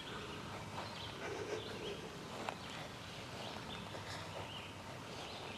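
Faint outdoor ambience: a steady low hiss with a few short, distant bird chirps.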